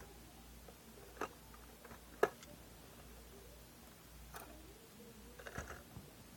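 Faint scattered clicks and taps of handling, one sharp click about two seconds in, others at about one and four seconds, and a short cluster of taps near the end.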